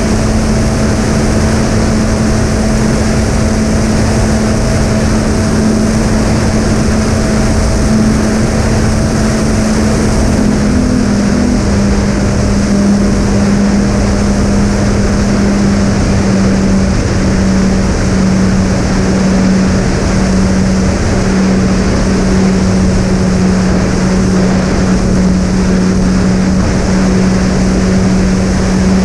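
Twin brushless motors spinning three-blade props on an RC fixed-wing plane in cruise, a steady droning whine over loud wind rush. About eleven seconds in, the pitch drops a little and stays lower, as the throttle is eased back.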